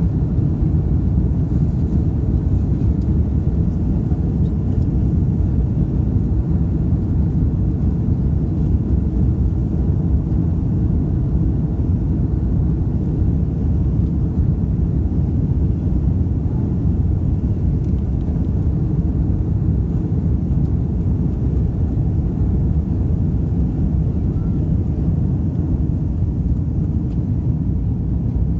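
Airbus A330 cabin noise on the takeoff roll and climb-out: the Rolls-Royce Trent 700 engines at takeoff thrust make a loud, steady low rumble, heard from inside the cabin.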